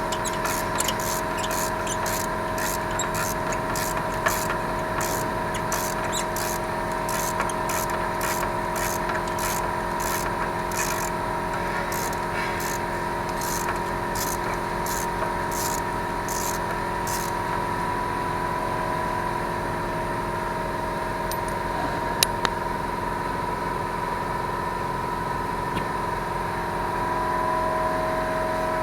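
A ratchet wrench being swung in short rasping strokes, about one or two a second, as spark plugs are unscrewed from the engine; the strokes stop about two-thirds of the way through. Under it a steady mechanical hum with a few fixed pitches goes on throughout.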